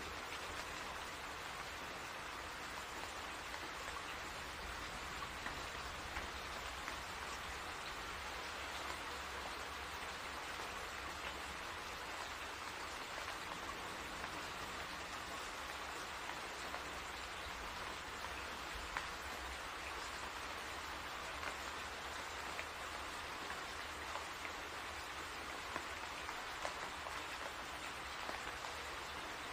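Steady rainfall: an even hiss of rain with scattered individual drop taps.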